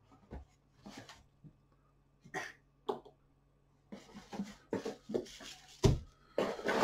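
Quiet handling noises: scattered light clicks, taps and rustles as small plastic toy soldiers and a cardboard box are handled on a table.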